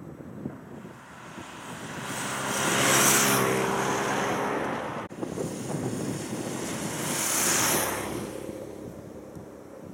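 Cars driving past close by one after another, each swelling to a rush of engine and tyre noise and fading away, the first a police car about three seconds in and a second near the end.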